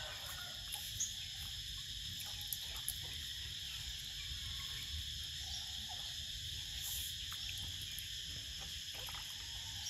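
Steady, high-pitched chorus of insects, with a low background rumble and a few faint ticks.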